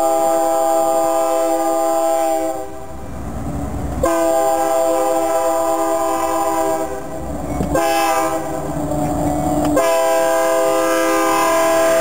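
Diesel freight locomotive sounding its multi-note air horn in long blasts with short breaks between them as the train approaches and passes close by. The low rumble of the locomotives can be heard in the breaks.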